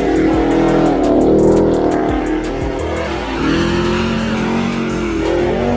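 A car engine revving, its pitch dropping and rising again several times, over background music with a steady beat.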